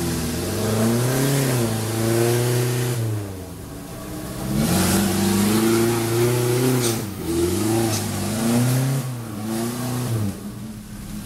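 Suzuki Jimny's engine revving hard under load as it crawls up a rocky trail, its pitch rising and falling about four times as the throttle is pumped.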